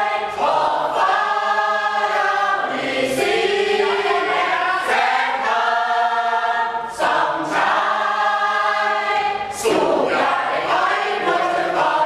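Mixed choir of men and women singing unaccompanied, in held phrases of about two seconds with short breaks and sibilant consonants between them.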